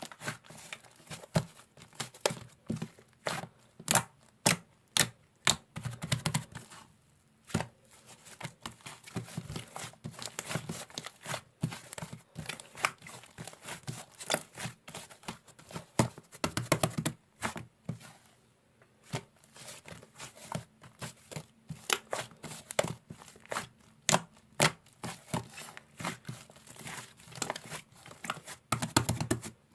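Irregular crinkling and tearing sounds with many sharp clicks, continuing without a steady rhythm.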